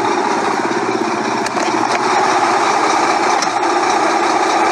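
Motor vehicle engine running steadily with a fast, even pulse, heard from inside a car cabin.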